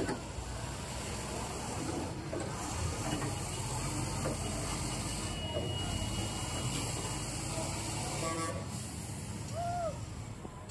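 Heavy diesel engine running steadily, a low rumble.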